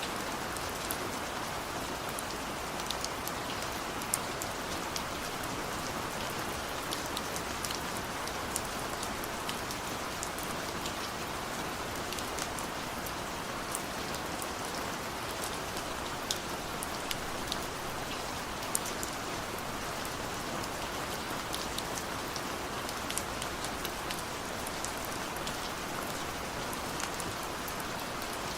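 Heavy rain falling steadily, an even hiss with many separate drops ticking sharply on a hard surface.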